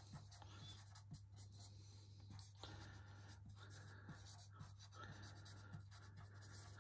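Red whiteboard marker writing on a whiteboard: faint, irregular scratches and squeaks of short pen strokes, over a steady low hum.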